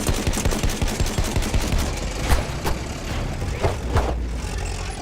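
Rapid automatic gunfire: a dense, fast string of shots, with a few short whooshing streaks mixed in around the middle.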